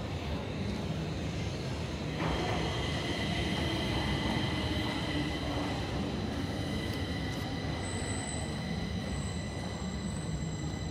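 Metro train running in an underground station: a steady low rumble, with a high steady squeal setting in about two seconds in and holding, and a still higher tone joining near the end.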